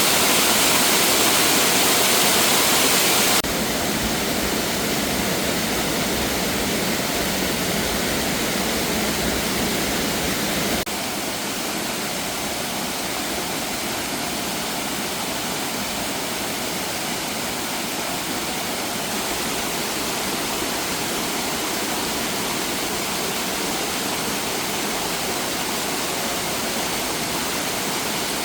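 Steady, loud rush of flowing water. It drops abruptly in level twice, about three and a half seconds in and again near eleven seconds.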